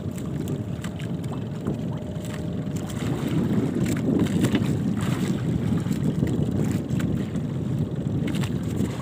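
Wind buffeting the microphone and sea water washing against a small outrigger boat, with scattered light clicks.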